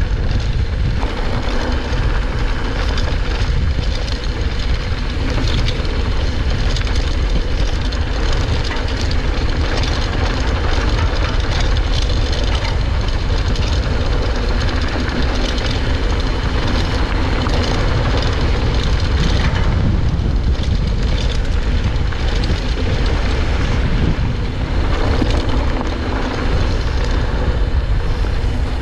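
Mountain bike ridden fast downhill on a dry dirt trail: steady wind rush on the microphone, with tyres crunching over dirt and small rattles and clicks from the bike over bumps.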